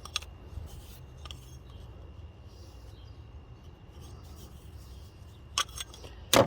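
Old hand tools being handled and set down, a few light clicks at first, then sharper metal clacks near the end, over a faint steady background hum.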